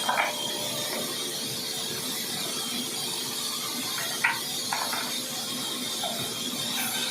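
Woodworking machinery running with a steady hum and hiss, with a few short wooden knocks: one just after the start and two around four to five seconds in.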